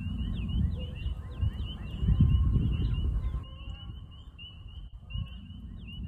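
Chorus of spring peepers: many short rising peeps overlapping in a steady high-pitched trill. Under it, wind rumbles on the microphone, heavier in the first half.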